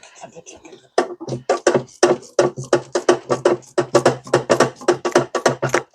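A man's voice rapidly repeating one short syllable, about five times a second, in a Pac-Man-like chomping imitation. It starts about a second in after a brief soft noise.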